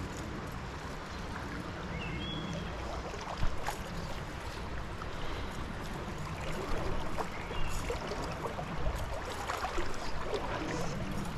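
Flowing stream water rushing steadily around a wading angler, with a low rumble underneath and a few short high chirps.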